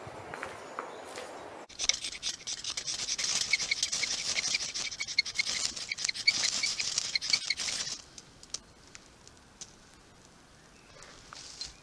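Ferrocerium rod (fire steel) being struck with a steel striker: quick repeated rasping scrapes, showering sparks onto tinder to light a fire. The scraping starts about two seconds in and stops about eight seconds in, followed by a few faint ticks.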